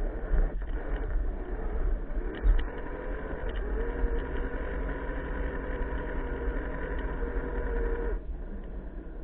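RC scale rock crawler's electric motor and geared drivetrain whining steadily as it crawls over wooden planks, with a few knocks of the tyres and chassis on the wood, the sharpest about two and a half seconds in. The whine stops about eight seconds in.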